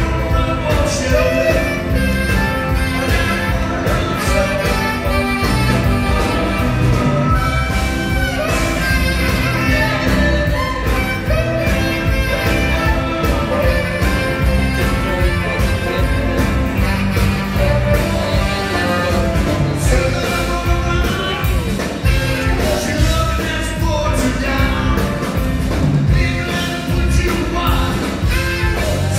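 Live rock band playing: electric guitars, bass, drums, saxophone and keyboards, with a male lead vocal over the top.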